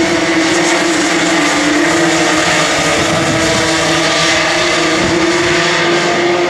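A pack of two-stroke racing karts running together round the circuit: a steady, high buzzing engine whine made of several overlapping pitches.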